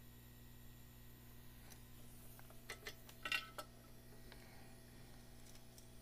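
Faint steady electrical hum at a workbench, broken a little past halfway by a quick cluster of light metallic clicks and clinks as small soldering tools are handled once the iron is lifted from a through-hole switch pin.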